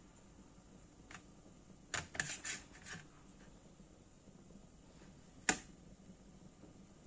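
Small glass spice jar handled on a ceramic plate: a few clicks and knocks around two to three seconds in, then one sharp knock about five and a half seconds in as the jar is set down.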